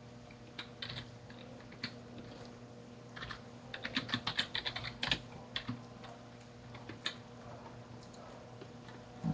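Typing on a computer keyboard: scattered keystrokes, with a quick run of keys about four seconds in. A steady low electrical hum lies underneath.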